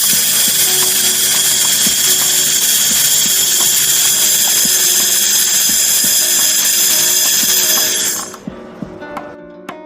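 Handheld fiber laser welder running: a loud, steady high-pitched hiss with a whine in it that cuts off suddenly about eight seconds in.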